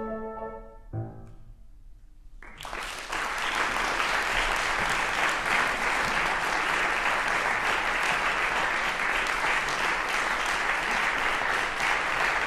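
The trumpet, trombone and piano end the piece: a held chord rings out, then a final short chord is struck about a second in. After a brief hush, an audience breaks into steady applause.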